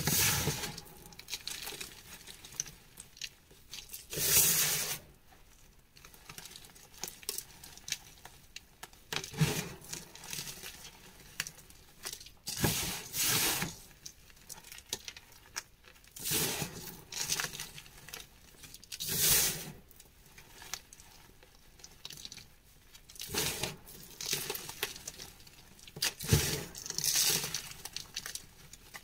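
Hands squeezing and crumbling powdery gym chalk and letting it sift and patter back onto a heap of chalk dust. It comes as irregular crumbly bursts every second or two, with short quieter gaps between handfuls.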